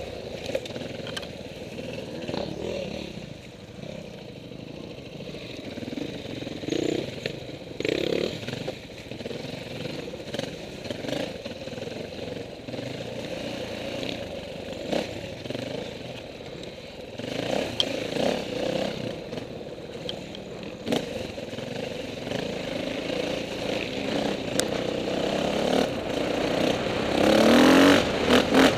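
Off-road dirt bike engines revving and running at varying speed, with one bike getting loud and rising in pitch near the end as it passes close.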